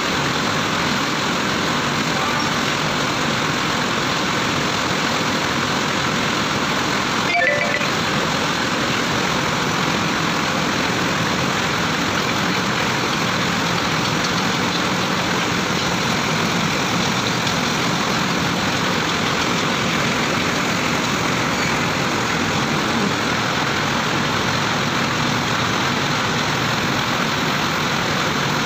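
Truck-mounted mobile crane's diesel engine running steadily while the crane holds and swings a heavy steel load, with a single short knock about seven seconds in.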